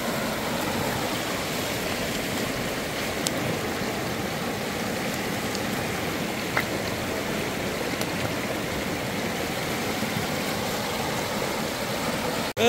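Piraputanga frying in hot oil: a steady sizzle with a few faint pops.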